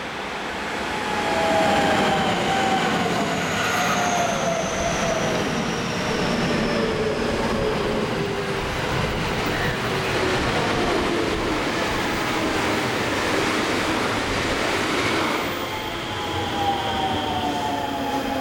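A JR West electric commuter train running past at close range: a steady, loud rumble of wheels on rail, with electric motor whine in several tones falling in pitch near the start and again near the end.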